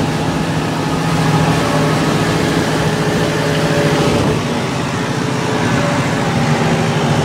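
Massey Ferguson 4290 Turbo tractor's turbo diesel engine running steadily while it drives cage wheels through a flooded rice paddy. Its note shifts slightly about four seconds in.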